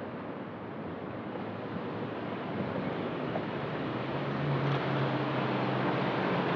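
Street traffic noise, slowly getting louder as a motorcycle approaches and passes near the end.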